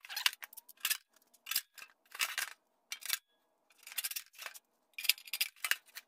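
Sheet-metal housing of a ProStandard electric space heater being handled and fitted back together: a string of irregular short metallic clanks and scrapes.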